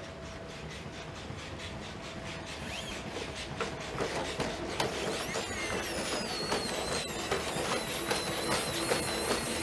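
Boston Dynamics SpotMini quadruped robot walking: its electric joint motors whine, rising and falling in pitch, over rapid, regular clicking footfalls. The sound grows louder from about four seconds in.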